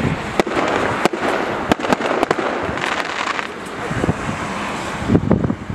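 Fireworks going off: several sharp bangs and cracks over a continuous crackling rush.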